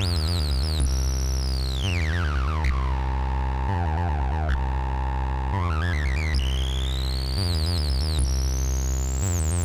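Eurorack modular synthesizer playing an acid-style jam, with a Versio module running as a 303-style voice. A bass sequence repeats steadily underneath while a high sweeping tone slides down over about two seconds, holds, then climbs back up.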